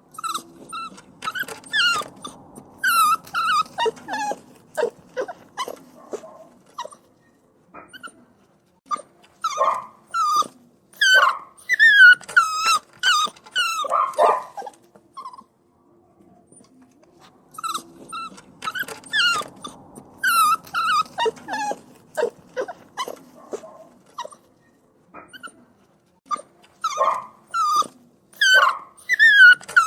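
Puppies whining and crying: bouts of high-pitched cries, many falling in pitch, broken by short pauses.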